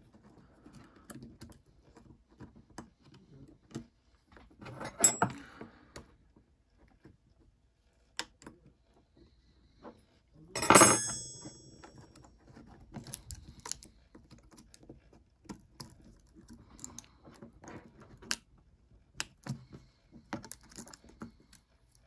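Small clicks and taps of hands working the plastic and metal parts of a disassembled iPod 4th generation, prying its logic board and click-wheel assembly loose. There is a louder clatter about five seconds in, and a sharper knock with a brief high ring about eleven seconds in.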